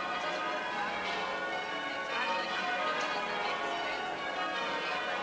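Church bells ringing changes, many bells striking one after another so their tones overlap in a continuous, even peal.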